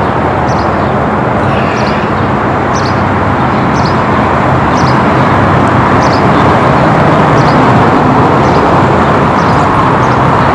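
Wind blowing across a phone's built-in microphone, a loud steady rushing, with faint short high chirps repeating about once a second.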